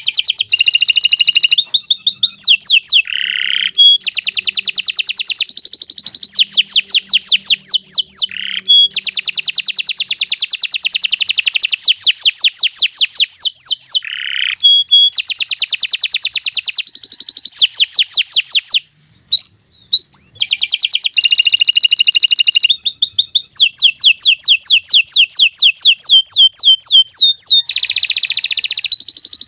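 Domestic canary in full song: a long, unbroken run of rapid trills and rolls mixed with clear whistled notes, high-pitched and loud. There is a brief pause about two-thirds of the way through.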